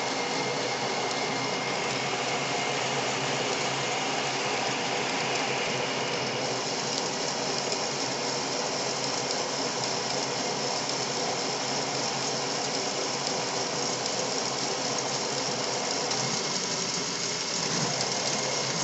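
Engine lathe running under power through a turning cut, a steady mechanical hum and whine of motor and gearing. A higher hiss joins about six seconds in as the tool works along the workpiece's outer diameter.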